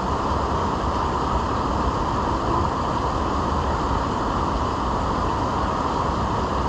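Steady rush of flowing river water, an even hiss and rumble without a break.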